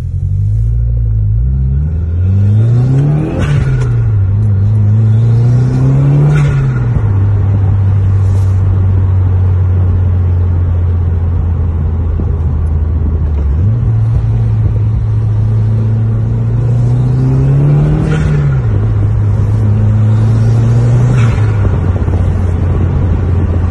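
Subaru WRX's turbocharged flat-four engine, heard from inside the cabin, accelerating through two gears: the pitch climbs and drops sharply at each upshift. It then cruises steadily for several seconds before pulling hard through two more gears, with a short rush of air at each shift from the newly fitted GrimmSpeed bypass valve venting.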